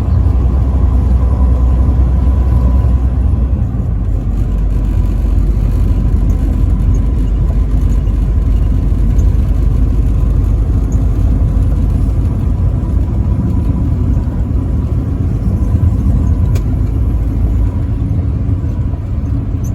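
Truck engine and road noise while driving on the highway: a steady low rumble.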